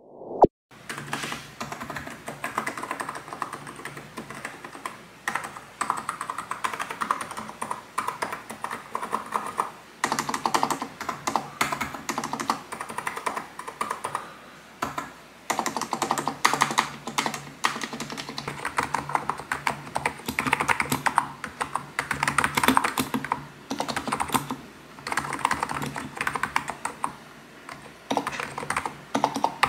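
Fast, continuous typing on an ABKO Hacker KN01 tenkeyless keyboard with 45 g electrostatic capacitive (무접점) switches and Cherry-style stabilisers. The keystrokes have a soft, bubbly (보글보글) sound, with a few short pauses.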